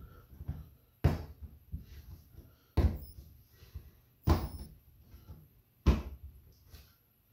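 Plastic cling film rustling as a ball of pasta dough is unwrapped by hand on a kitchen benchtop, broken by four sharp thumps about a second and a half apart.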